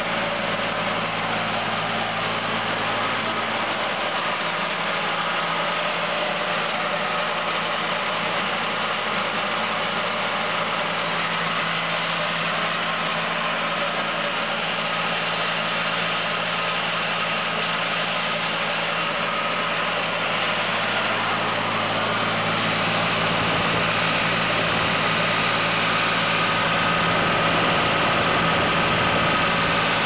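Deutz diesel engine of a Diamond Core Cut CC6500 walk-behind concrete saw idling steadily, a little louder in the last third.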